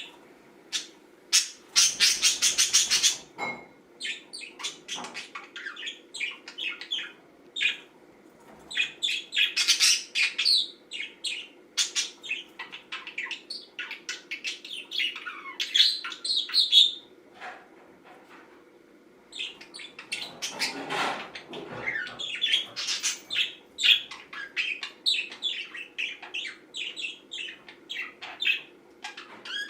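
Green budgerigar chattering and warbling: a fast jumble of chirps, trills and clicks, with a pause of about two seconds a little past the middle.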